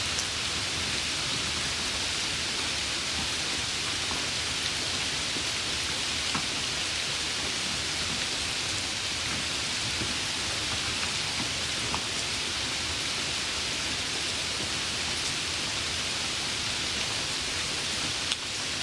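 Light rain falling: a steady hiss with scattered faint drop ticks. A single sharp click comes near the end.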